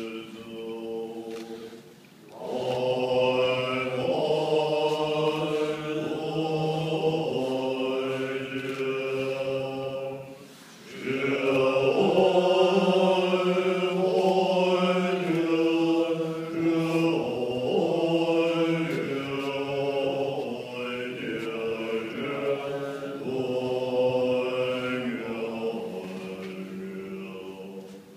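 Tibetan Buddhist monks chanting together in low, sustained voices. The held notes change pitch every second or two, with short pauses for breath about two seconds in and again about ten seconds in.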